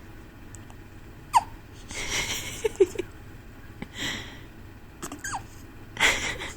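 Newborn baby hiccuping: several short, squeaky hics a second or two apart, with breathy puffs between them.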